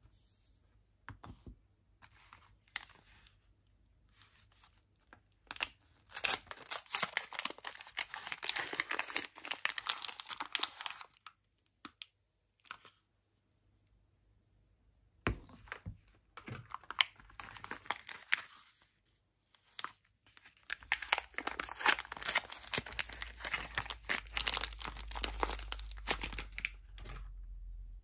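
Wrappers of Palmolive bar soaps being torn open and crinkled by hand, in long bouts of rustling about a third of the way in and again through most of the second half, with faint taps of the bars being handled in the quieter stretches.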